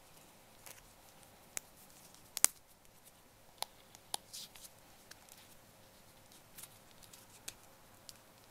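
Scattered light clicks and taps from a wristwatch being handled on the wrist. The loudest is a double click about two and a half seconds in.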